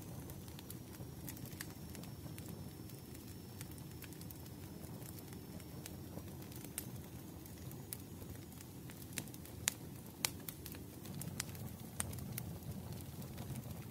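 Burning firewood crackling: a steady low rush of flames with scattered sharp pops, two louder pops about ten seconds in.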